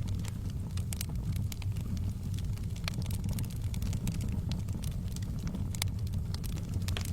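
Wood fire in a fireplace crackling: frequent, irregular sharp pops and snaps over a steady low rumble.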